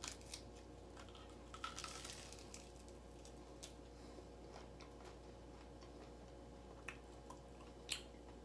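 Faint biting and chewing of a piece of cornmeal-breaded, pan-fried red squirrel, with scattered small mouth clicks, a few louder ones about two seconds in and near the end.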